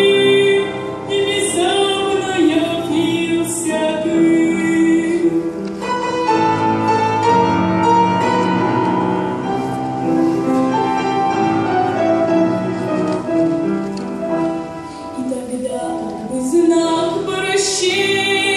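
A boy's unbroken voice singing a slow Russian-language hymn into a microphone, with held notes and vibrato, over instrumental accompaniment.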